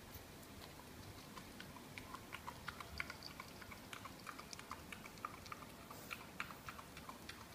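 Miniature dachshund chewing and licking at a raw lamb shank: faint, irregular clicks and smacks, several a second, growing busier after about two seconds.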